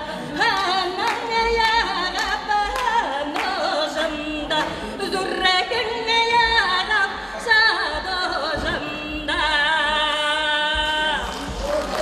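A woman singing solo into a microphone, her melody full of quick slides and bends in pitch. About nine seconds in she holds one long wavering note for about two seconds.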